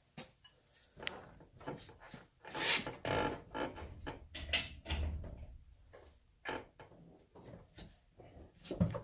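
Irregular metallic clicks, clunks and scraping as a hand works at the engine mount of an engine being lowered into a car's engine bay, with a sharp click about four and a half seconds in and a knock near the end.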